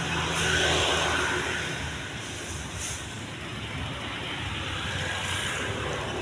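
Steady low hum of motor traffic, with one vehicle passing and growing louder about half a second to a second and a half in.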